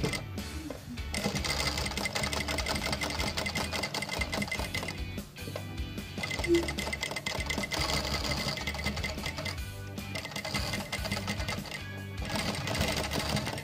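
High-speed single-needle lockstitch sewing machine running in spurts with a few short pauses as it sews, skipping stitches: a sign of a rotary hook set wrongly to the needle and a presser foot not pressing down enough.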